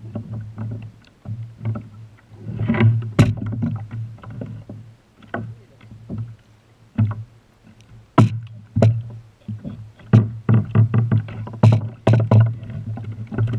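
Irregular knocks, taps and rattles of a freshly caught croaker being handled and unhooked on a kayak, over a low steady hum.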